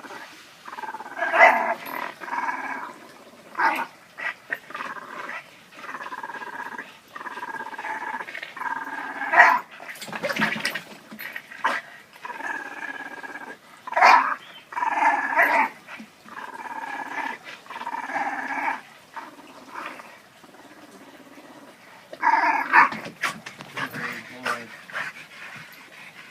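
Boston Terriers growling in play: a run of rough growls about a second long each, one after another with short breaks, and a sharper, louder sound about ten seconds in.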